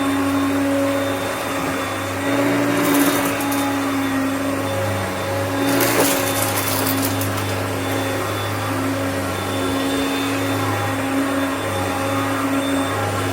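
Hoover Concept upright vacuum running steadily on a pickup test, with two short bursts of rattling hiss, about three seconds in and again about six seconds in, as debris is sucked up.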